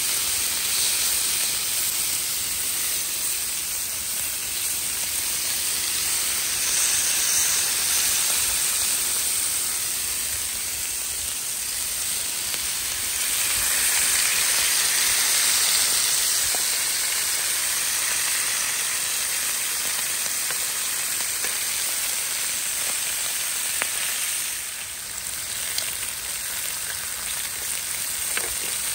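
Slices of beef sizzling on a hot grill pan, with a few light clicks of metal tongs turning the pieces.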